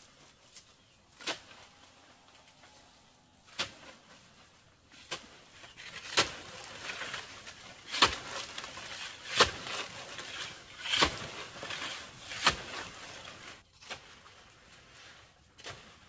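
A run of sharp knocks or strikes, one about every second and a half, loudest in the middle, with rustling between them.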